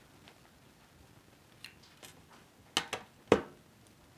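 Small clicks and taps from handling an iPhone SIM card and tray on a glass tabletop: a few light ticks, then three sharper clicks in quick succession about three seconds in, the last the loudest.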